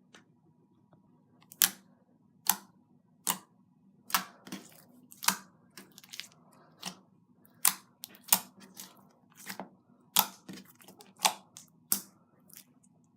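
Clear slime, still a little sticky, being squished and played with by hand, giving sharp sticky clicks and pops at an uneven pace of about one or two a second.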